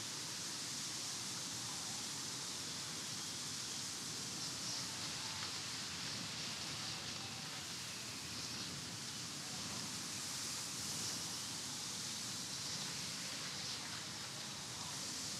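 Steady rush of wind, a hiss-like blowing that swells slightly now and then.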